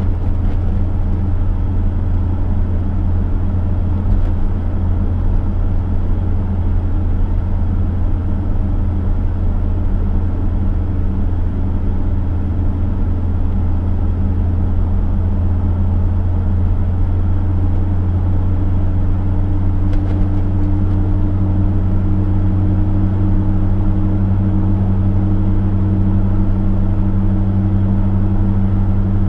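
Chevrolet V8 engine droning at a steady cruise, a loud low hum with road noise under it.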